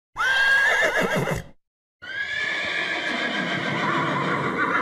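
A horse whinnying twice: a short whinny, then after a brief pause a longer one that slides down in pitch and quavers near its end.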